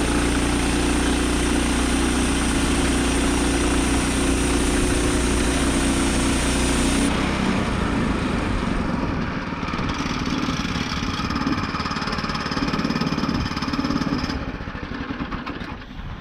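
Gas engine of a Woodland Mills 122 portable bandsaw sawmill running steadily during milling of a cherry log. About seven seconds in the sound changes abruptly to a lighter engine note with less low rumble, and it shifts again near the end.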